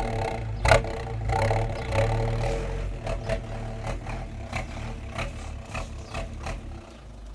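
Ford Transit engine dropping back from a rev toward idle, with a string of irregular sharp puffs and ticks from the exhaust, then idling steadily near the end. This is the odd exhaust 'wind sound' the van is making.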